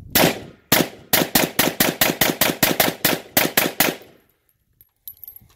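FK BRNO Field Pistol in 7.5 FK firing a rapid string of about fifteen shots: one shot, a short pause, then shots at about four to five a second, stopping about four seconds in.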